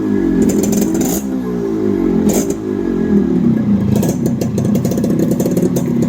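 Yamaha RX 135's single-cylinder two-stroke engine, freshly rebuilt, revved in three quick throttle blips that each fall back, then running steadier with a rapid crackly exhaust beat.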